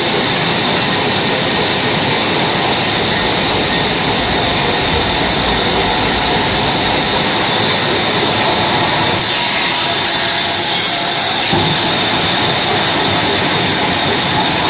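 Large sawmill band saw running steadily with a loud hiss as its blade cuts through a teak log. The tone shifts briefly about nine seconds in.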